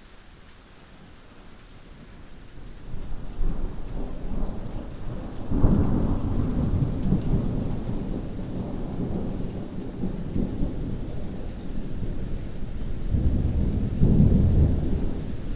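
Thunder rumbling over heavy rain. The rumble builds from about two seconds in, breaks into a louder clap about five and a half seconds in, rolls on, and swells again near the end.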